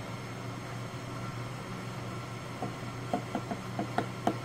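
A wooden stir stick and a plastic spoon tapping against a plastic tub as a glue mixture is stirred: a quick run of light taps, about four or five a second, starting a little past halfway. Under it a steady low hum.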